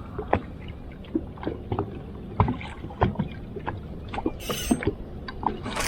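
Low rumble of wind and water around a small fishing boat, with scattered light clicks and knocks and a brief hiss about four and a half seconds in.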